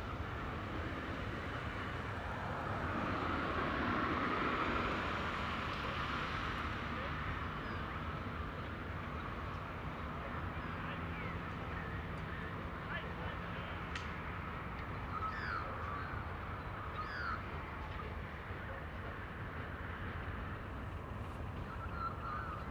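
AD60-class Beyer-Garratt steam locomotive 6029 working as it pulls away: a steady rumble and hiss that swells about four seconds in, then settles. Birds chirp over it from the middle on.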